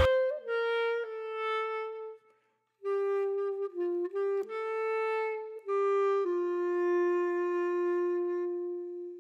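Background music: a slow solo melody of long held notes on a single wind instrument, breaking off briefly about two seconds in and ending on a long held note that fades away.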